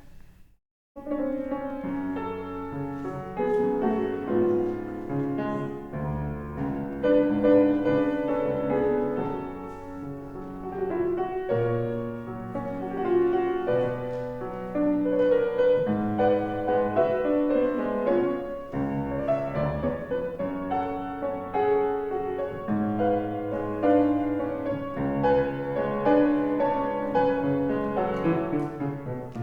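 Solo piano music, beginning about a second in after a brief silence and playing continuously: a calm postlude closing the worship service.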